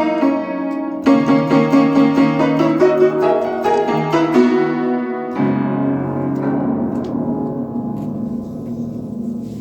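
Piano music: a quick, steady run of notes, then about halfway through a final held chord that slowly dies away.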